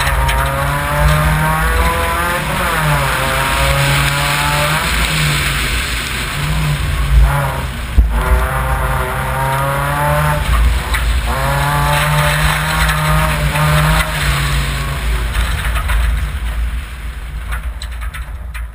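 Subaru Impreza rally car's flat-four engine revving hard and shifting up again and again, its pitch climbing after each shift, over a constant hiss of tyres on wet gravel, with two sharp knocks about halfway through. Near the end the engine note drops away as the car slows.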